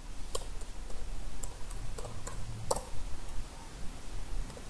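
Scattered keystrokes on a computer keyboard: short sharp clicks at an uneven pace, one louder key press about two and three-quarter seconds in, as a password is typed and entered.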